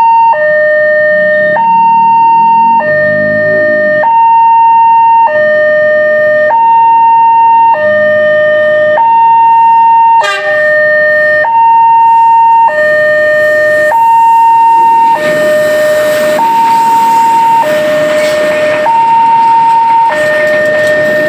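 Railway level-crossing siren sounding through its horn loudspeaker: a loud two-tone hi-lo warning that switches between a higher and a lower steady tone about every second and a quarter. This is the crossing's newly fitted siren. A sharp click comes about halfway through, and a broad noise builds under the siren over the last third.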